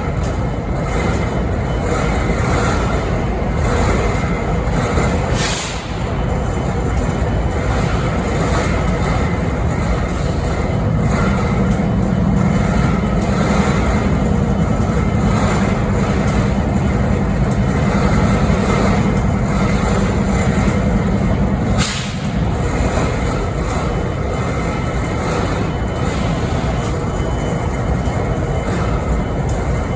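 Diesel locomotive idling with a steady loud rumble. A low drone comes in about eleven seconds in and stops suddenly about ten seconds later; this may be the strange noise the locomotive is making.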